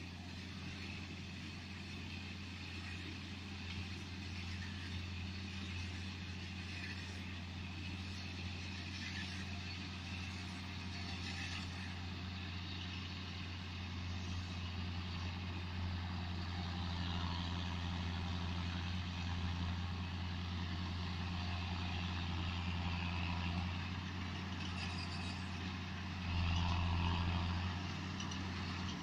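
John Deere 6620 tractor's six-cylinder diesel engine running steadily under load as it pulls a Claas Rollant 255 round baler-wrapper through the hay, growing louder as it comes closer. Near the end the engine sound swells louder for a couple of seconds.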